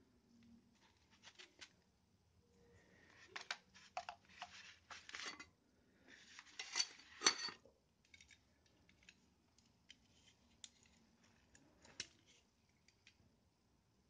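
Handling noise as cast-concrete blocks with plastic pipe stubs are shifted on a plastic-sheeted table and a metal vernier caliper is set against one: rustling and scraping with light metallic clicks. Loudest in two stretches a few seconds in and about halfway, then scattered clicks.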